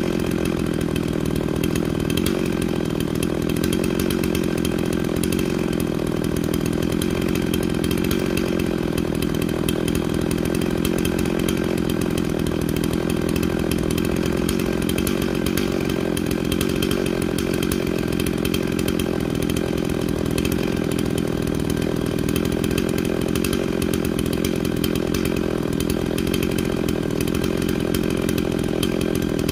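Stihl chainsaw engine running at a steady, unchanging speed, with no revving up or down.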